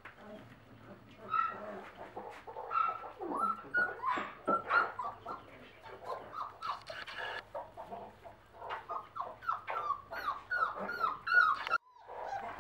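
Four-week-old Basset Artésien Normand puppies whimpering and yipping in many short, high calls while they eat kibble from a metal pan, with clicks and rustles among the calls.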